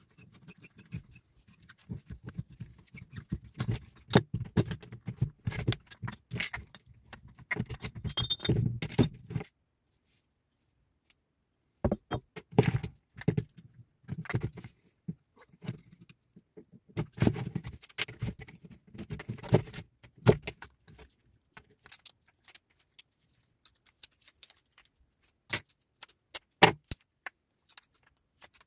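Starter motor being taken apart by hand: clinking, rattling and scraping of small metal parts, its gear housing and a screwdriver. The handling comes in two busy spells with a short silent pause between, then thins to scattered clicks.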